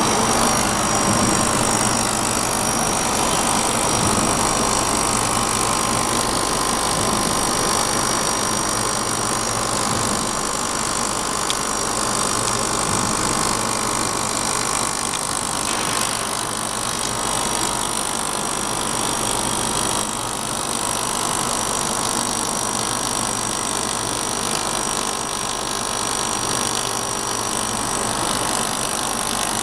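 Laser welding machine running: a steady whirring hum with a faint high whine held throughout.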